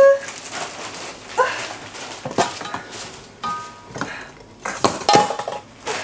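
Four or five short, squeaky whimpering cries, each under half a second, with light clinks and knocks in between.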